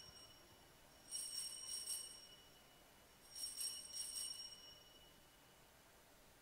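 Altar bells shaken in short peals: one dying away at the start, then two more about two seconds apart, each ringing for over a second. They mark the elevation of the consecrated host at Mass.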